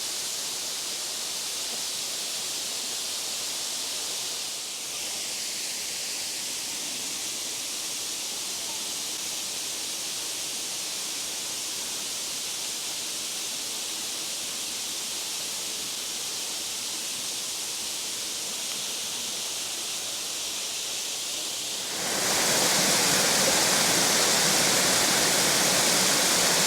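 Erawan Falls rushing steadily over its rock ledges, an even hiss of falling water. About 22 seconds in the rush grows clearly louder and stays so.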